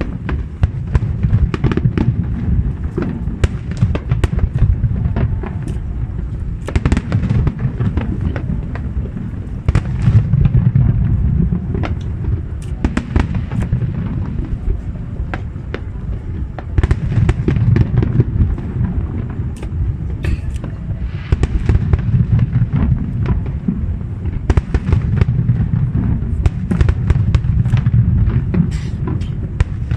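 Distant fireworks display: a dense, continuous barrage of bangs and crackling bursts over a deep rolling rumble, thickening into heavier clusters several times.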